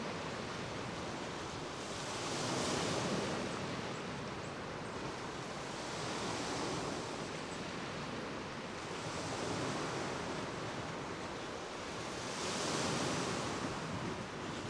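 Small Lake Michigan waves washing onto a rocky shoreline, a steady hiss that swells about every three to four seconds as each wave comes in.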